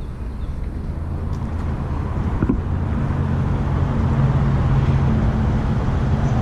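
Low, steady motor hum over a rumble, slowly growing louder.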